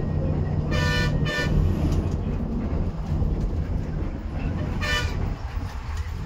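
Bus interior with the engine and road rumble running steadily. A vehicle horn honks twice in quick succession about a second in, then once more near five seconds.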